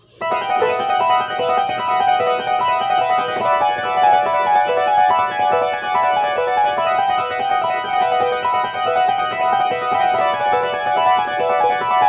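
Electronic keyboard played in a fast, busy run of short notes that starts abruptly.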